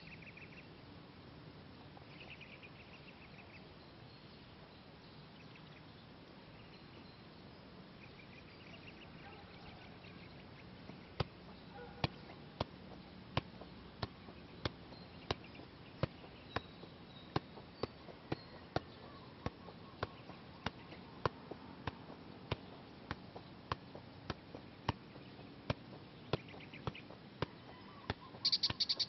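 Soccer ball being juggled on the feet: a regular run of sharp taps, about one and a half a second, starting about a third of the way in. Faint chirping early on, and a brief shrill burst near the end.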